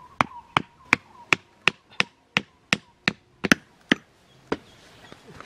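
Repeated sharp chopping blows, about three a second, stopping about four seconds in with one last weaker blow after it.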